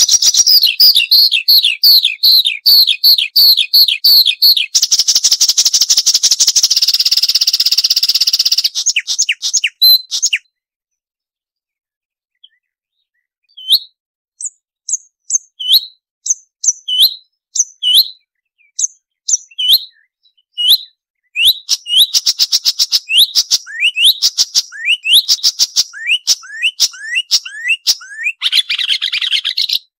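Marsh warbler singing: a fast run of repeated down-slurred notes, then a dense buzzy trill, a pause of about three seconds, then scattered sharp chirps and whistles building into quick, varied phrases.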